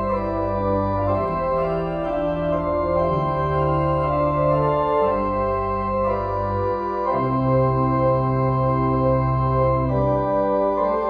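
Organ music: slow, sustained chords over long held bass notes, the harmony changing every second or two.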